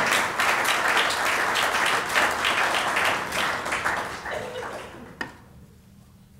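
Audience applauding, the clapping fading out about five seconds in, followed by a single sharp click.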